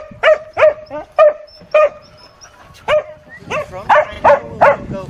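A dog barking repeatedly: about a dozen sharp barks in two quick runs, with a short pause in the middle.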